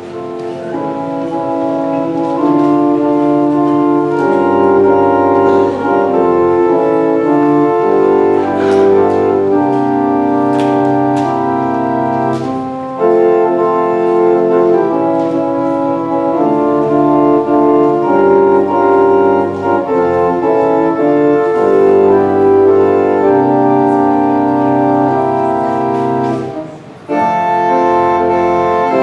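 Organ playing a slow piece in held chords, with a short break near the end before it goes on.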